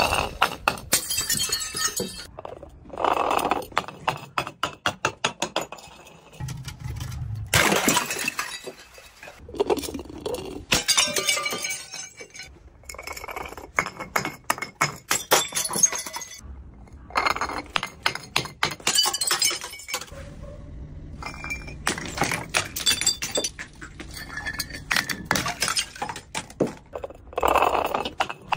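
Filled glass jars clattering and clinking as they tumble down concrete steps, with glass breaking. Several separate runs of rapid hits, with short pauses between them.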